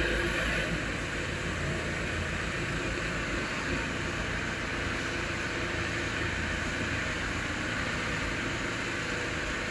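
CNC wood router running with its spindle carving a wooden log turned on the rotary axis: a steady, even machine hiss and hum with no breaks.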